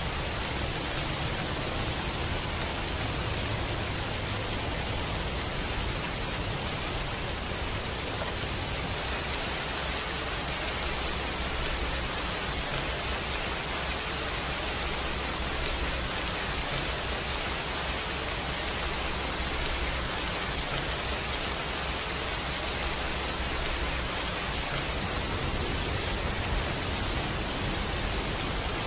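Steady rain noise, an even hiss spread from low to high pitch with no single drops or other sounds standing out.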